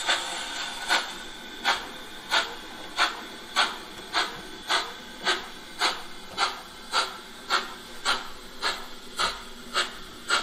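Gauge 1 model of a Prussian T3 (class 89) steam tank locomotive running under its ESU LokSound 5 sound decoder, puffing out regular steam-exhaust chuffs, a little under two a second, with a steady hiss between them.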